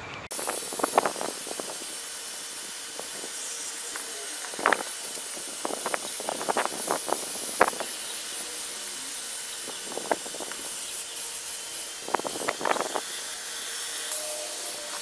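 Pet grooming vacuum with its clipper attachment running: a steady hiss of suction, broken by irregular short crackles as fur is clipped and drawn into the hose.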